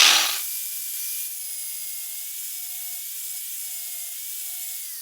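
Electric grinder starting with a loud burst, then running steadily with a high whine over a hiss as it grinds a small flat onto a metal shaft coupler. The flat gives a drill bit somewhere to start.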